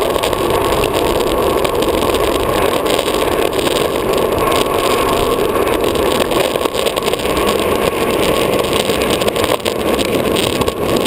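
Longboard urethane wheels rolling fast on asphalt: a steady, loud wheel roar with deck vibration, heard close up from a camera mounted on the deck, with wind on the microphone.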